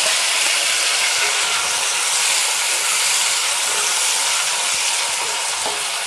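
Freshly added chopped onion, tomato, garlic, green chillies and curry leaves sizzling in hot tempered oil as they are stirred with a wooden spatula: a steady frying hiss, the start of sautéing.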